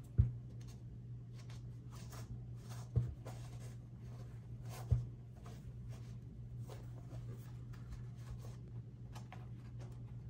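Shoes and their box being handled: light rustling and scraping with three sharper knocks, near the start, about three seconds in and about five seconds in, over a steady low hum.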